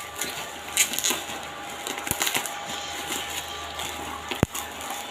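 Packaging being handled and unwrapped, with scattered crackles and rustles and one sharp click or knock about four and a half seconds in.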